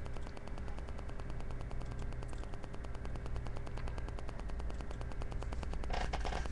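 Steady low electrical hum and static hiss with a fast, even ticking, the noise floor of a recording microphone; a brief louder scratchy noise near the end.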